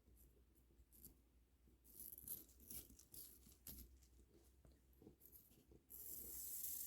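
Near silence with faint clicks and rustles of plastic kandi beads and string being handled, and a brief soft hiss near the end.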